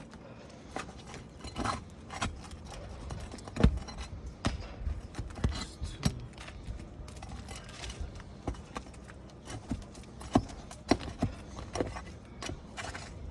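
Irregular knocks, taps and scrapes of hand tools working at roof shingles while a damaged shingle is loosened. The sharpest knock comes nearly four seconds in, with several more around ten to eleven seconds.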